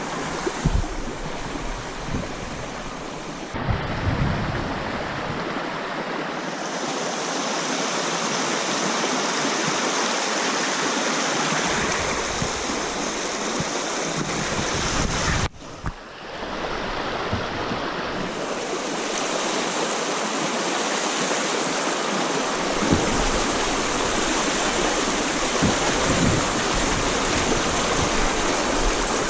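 Steady rushing of river water spilling over a small dam, loud and even, briefly cutting out about fifteen seconds in.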